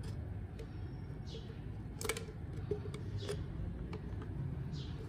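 Pink slime being poured and stretched from a jar into a tray, with sticky clicks, crackles and short squelches. The loudest cluster of clicks comes about two seconds in.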